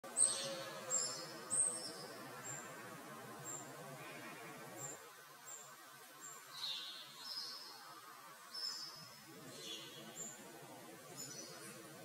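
Small songbirds calling with short, high chirps: a quick cluster in the first two seconds, then more scattered calls, over faint background noise.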